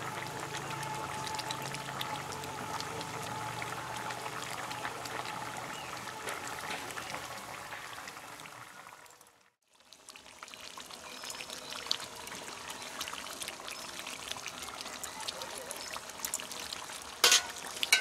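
Curry bubbling in a large iron karahi over a wood fire: a steady watery burble. It fades out about halfway through, then returns with scattered scrapes and knocks of a metal ladle against the pan. The loudest is a sharp clank near the end.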